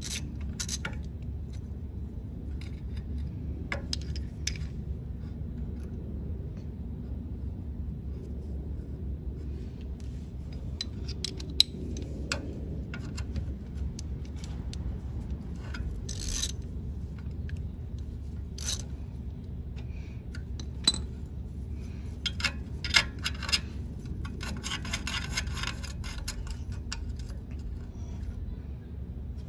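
Socket wrench working the rusty exhaust flange nut off a 1968 Honda CT90's cylinder head: scattered metal clicks, scrapes and clinks, with a quick run of rapid ratchet-like clicking near the end. A steady low hum runs underneath.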